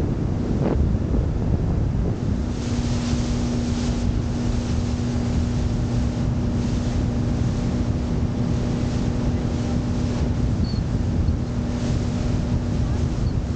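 Motorboat running at speed: the engine's steady drone under heavy wind buffeting on the microphone and the hiss of spray and churned water from the hull. A steady hum comes in about two seconds in.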